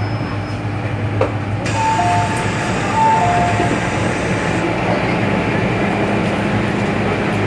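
Inside an MTR Island Line M-Train carriage: steady train noise, with a two-note electronic chime, high then low, sounding twice about two seconds in. A faint steady hum joins in about five seconds in.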